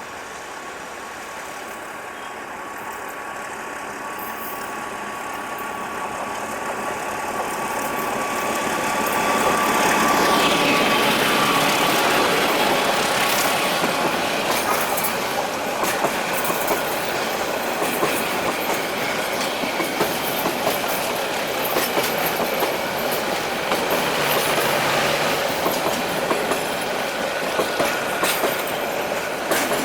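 Metre-gauge train hauled by an MLW DL535A diesel locomotive approaching and passing, growing louder until about ten seconds in. The coaches then roll by with a steady clickety-clack of wheels over rail joints.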